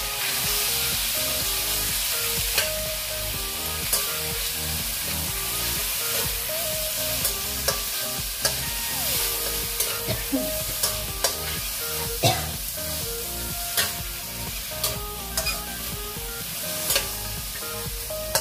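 Chicken pieces sizzling and frying in a hot stainless steel wok while a spatula stirs and turns them, with sharp clicks of the spatula against the pan every second or so.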